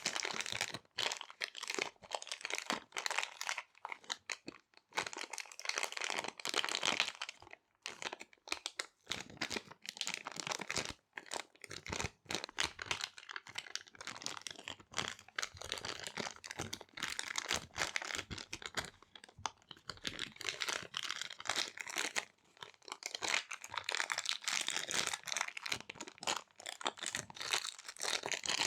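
Small resealable plastic bags being handled: dense, irregular crinkling and rustling, with short pauses now and then.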